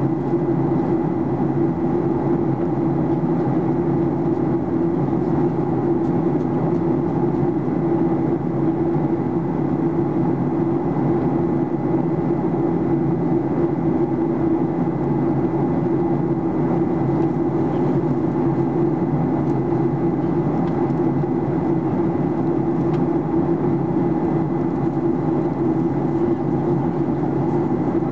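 Steady cabin drone of a Boeing 737-800's CFM56-7B turbofan engines heard from inside the cabin over the wing, a deep even rumble with a faint high steady whine on top.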